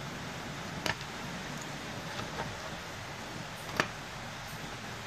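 Light clicks and knocks of a plastic security-camera housing being handled, the sharpest nearly four seconds in, over a steady background hiss.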